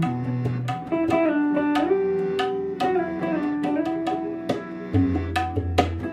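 Instrumental background music: a plucked-string melody over regular percussive strikes, with a low bass note coming in about five seconds in.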